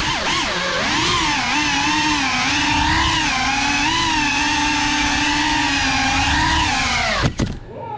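GEPRC Cinelog 35 ducted cinewhoop drone's brushless motors and propellers whining in flight, the pitch swelling and dipping with throttle. About seven seconds in a sharp knock is heard and the motor whine cuts off.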